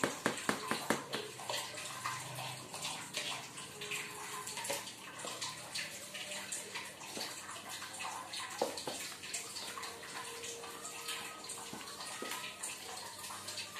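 Hands mixing flour, beaten egg and melted butter into a crumbly dough in a plastic tub: a scratchy rustling and squishing with many small clicks.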